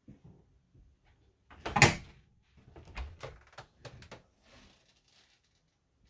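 Dometic RV refrigerator doors being handled: one loud thump about two seconds in, then a run of lighter knocks and clicks as the doors and their latches are worked.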